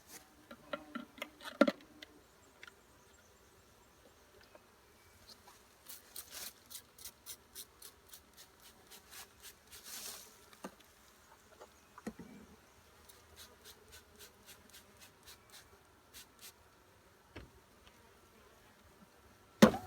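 Honeybees buzzing in a package, a faint steady hum, with runs of short sharp clicks and one loud knock near the end.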